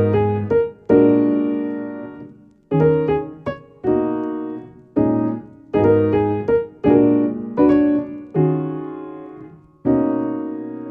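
Background music: a solo piano playing slow, ringing chords, each struck and left to die away.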